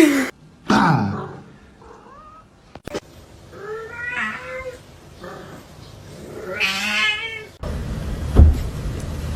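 Cats meowing and yowling in several separate drawn-out calls that bend in pitch; the two loudest come a little before halfway and about two-thirds of the way in. After that comes a steady noise with one loud thump near the end.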